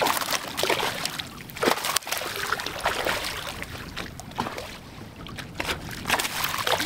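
Hooked largemouth bass thrashing at the water surface, a run of repeated splashes that come in bursts, until it is grabbed by the lip beside the boat.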